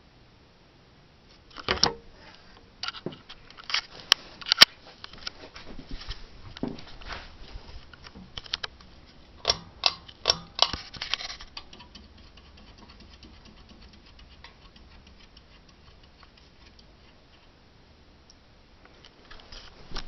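Sharp clicks and light metallic rattles over the first ten seconds or so, from the ceiling fan's pull-chain speed switch being worked by hand to set the lowest speed. The Seagull Lighting Main Street fan then runs slowly with a faint steady hum.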